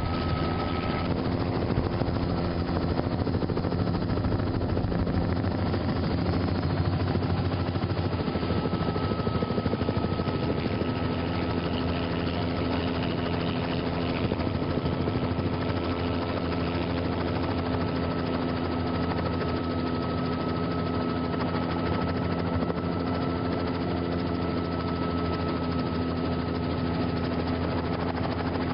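Helicopter running steadily, heard from on board: an even engine and rotor drone with a thin, steady high whine above it.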